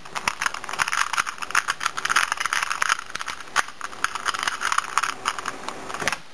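A plastic 2x2 puzzle cube turned rapidly by hand through an OLL algorithm, its layers giving a fast, uneven run of clicks and rattles.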